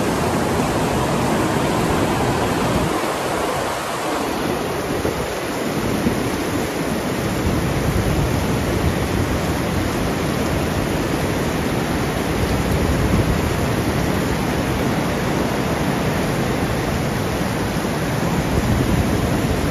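Heavy rain pouring down steadily, a dense even hiss with no break.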